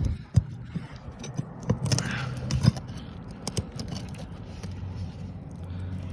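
Old roofing nails being worked loose and pulled from under asphalt shingles: scattered metal clicks, sharp knocks and scraping.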